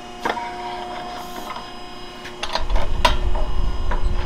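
Hydraulic pump of a Huth exhaust pipe expander running with a steady hum and a few metal clanks. From about two and a half seconds in it works harder, adding a low rumble as the ram forces the expanding die into the pipe end.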